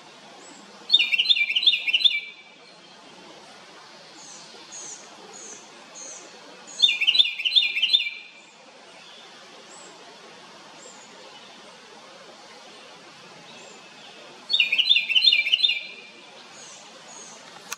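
House wren singing loudly: three bursts of rapid, repeated notes, each about a second long and roughly six seconds apart, with fainter, higher chirps between them.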